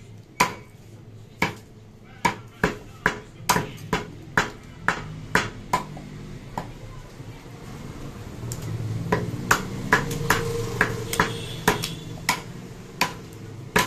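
Heavy butcher's cleavers chopping goat meat on a wooden log chopping block: a steady run of sharp chops, about two a second, each with a short metallic ring.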